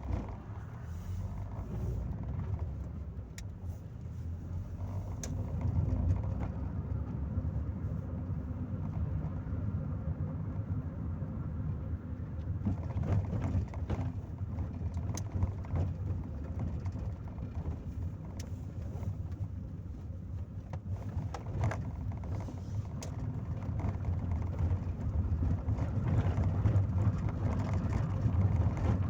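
Chevrolet Corsa Maxx on the move, heard from inside the cabin: a steady low engine and road rumble with a few light clicks, growing somewhat louder near the end.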